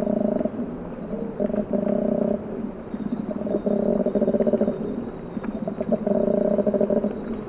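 Koala bellowing: a deep, guttural, pulsing call in repeated phrases that swell and fade, with about four loud stretches. This call is usually made by males in the mating season.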